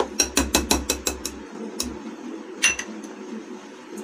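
A hand beats thick ground-lentil (dal) batter in a glass bowl, a quick run of wet slaps and taps against the glass, about six a second, for roughly a second and a half. A single ringing clink follows near the end, a steel spoon set down in a small glass bowl.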